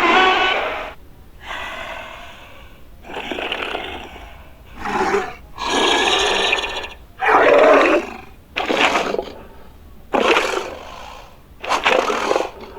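Creature sound effects for an imagined alligator–monitor lizard monster: a string of about nine separate roars, growls and breathy hisses with short pauses between them.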